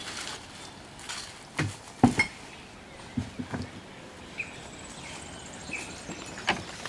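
A few scattered knocks and handling clatter, the loudest about two seconds in, with a few short high chirps and a faint thin high tone in the background.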